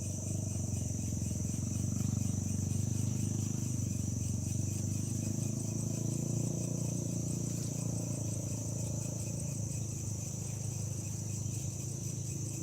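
Insects chirring in a steady high-pitched drone, over a low, even background noise.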